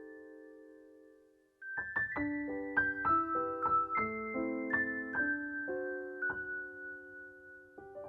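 Background piano music: a held chord dies away almost to silence, then a new gentle phrase of single notes and chords begins about a second and a half in.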